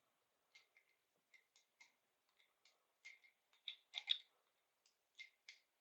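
Faint scattered clicks and light taps of small metal parts and hand tools being handled during assembly, a quick cluster of slightly louder ones about four seconds in.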